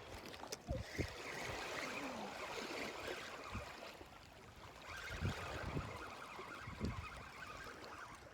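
Fishing reel being cranked: a steady whir in two stretches, the second about two seconds after the first stops, with scattered low knocks of handling.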